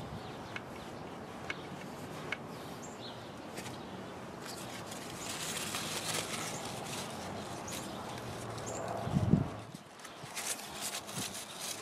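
Hands wiping grease from a snow plow pivot bolt and its grease fitting with a shop towel: rustling with scattered small clicks, and one loud low thump about nine seconds in.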